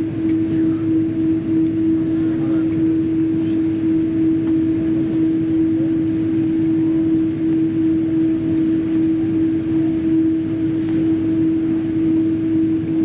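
Steady cabin drone of a Boeing 777-200ER on the ground at the apron: one strong, unchanging hum tone over a low rumble from the aircraft's running systems.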